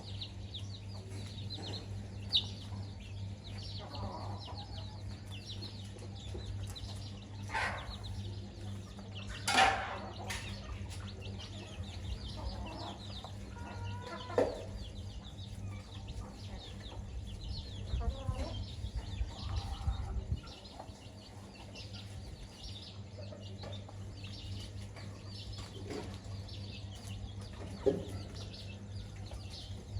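Domestic chickens clucking now and then, with a dozen or so short calls spread through, the loudest about a third of the way in, over a steady low hum.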